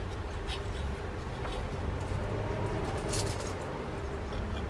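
Steady low outdoor rumble with a few brief scratchy rustles of a cloth being wiped over a toy steam engine's metal boiler; the engine itself is not running.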